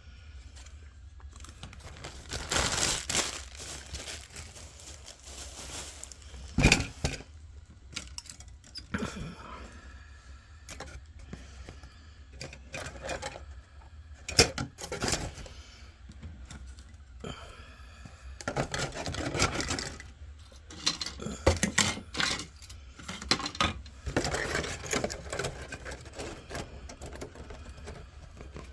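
Plastic model kit parts and their packaging being handled: irregular clicks and knocks of plastic parts, with crinkling rustles.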